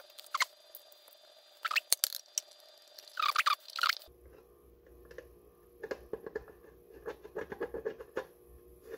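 Short crackling, scraping bursts as a tool works the plastic at a box hinge for about four seconds, then, after a cut, a run of small clicks and rubs as fingers handle the repaired plastic hinge.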